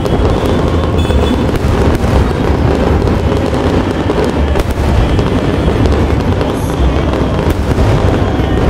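Fireworks display: aerial shells bursting one after another in a continuous barrage of booms and crackling.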